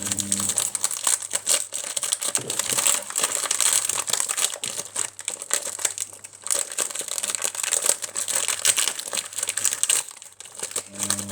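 Plastic Oreo packet crinkling and rustling, with an irregular crackle throughout, as it is handled and opened to get the cookies out.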